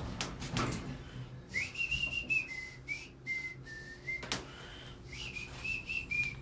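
A person whistling a short tune in two phrases, the notes stepping up and down, with a few sharp clicks in between.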